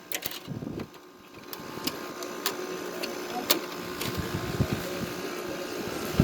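GE 6500 BTU window air conditioner running, a steady hum from its blower and compressor. Scattered sharp clicks and knocks sound over it as the filter and front grille are handled and fitted back into place.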